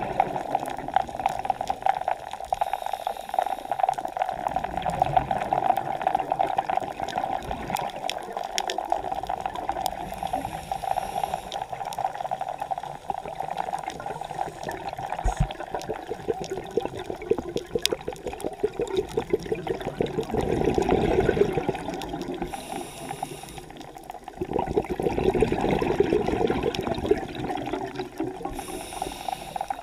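Scuba diver breathing through a regulator underwater: short hisses on the inhale and a crackling rush of exhaled bubbles, loudest about two-thirds of the way through and again a few seconds later.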